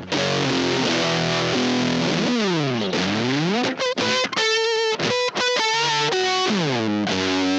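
Stratocaster on its bridge pickup played through a germanium fuzz pedal with the fuzz maxed. A held, sustaining chord gives way to slides down and back up the neck, then high notes with vibrato, and ends on another held chord.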